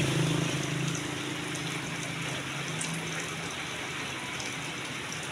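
Steady rain falling, with a vehicle's engine hum dying away over the first few seconds.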